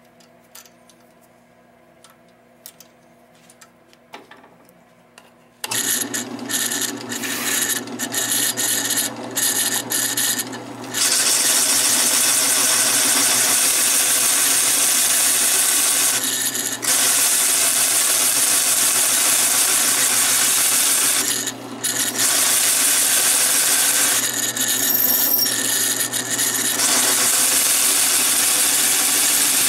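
Drill press starting up about six seconds in and driving a 3/4-inch hole saw into a wooden board: a steady motor whine with the saw teeth rasping through the wood, dropping off briefly a few times.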